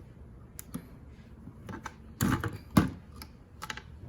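A few sharp plastic clicks and knocks, the loudest a little under three seconds in, as an electrical connector inside a car side mirror is worked loose and unplugged.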